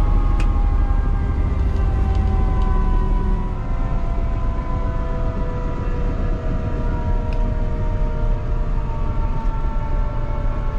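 Airbus H125 helicopter's turboshaft engine and main rotor winding down after shutdown: a whine sliding slowly down in pitch over a heavy low rumble, easing a little about three and a half seconds in.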